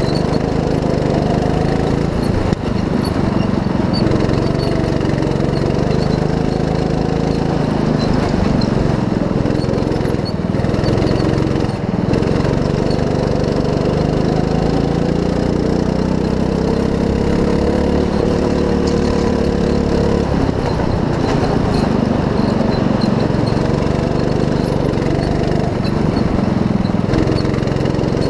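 Go-kart engine running hard, heard from the driver's seat, its pitch rising and falling repeatedly as the kart speeds up and slows. One long climb drops off sharply about twenty seconds in.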